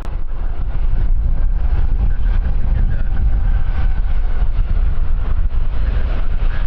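Wind buffeting the microphone in a loud, steady low rumble, with an aircraft's engine running underneath and a faint high whine in the middle seconds.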